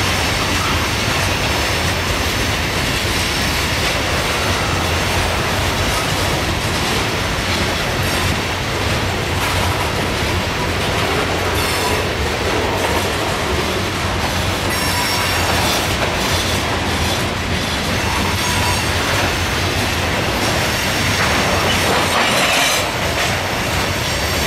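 A loaded coal train's hopper cars rolling past with a steady rumble, wheels clacking over the rail joints, and wheel squeal at times.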